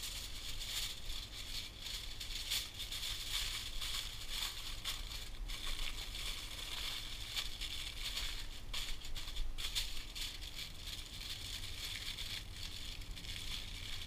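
Thin, cheap aluminium foil crinkling and crackling as it is folded and crimped shut into a sealed pack, in a quick run of small irregular crackles over a steady high hiss.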